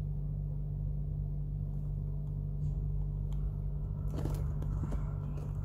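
Steady low mechanical hum with a strong low pitch, with a brief rustle about four seconds in.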